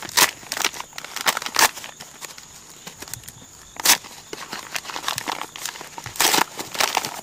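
Paper sugar bag crinkling and rustling as it is handled, in irregular bouts, with a sharp crackle about four seconds in and a louder spell of crinkling near the end.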